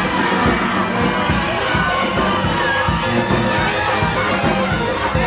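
New Orleans second-line brass band playing: sousaphone and horns over a steady bass drum beat, with crowd noise mixed in.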